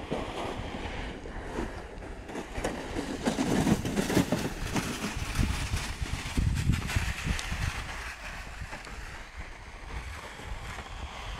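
Wind buffeting the microphone, rising and falling, loudest between about three and seven seconds in.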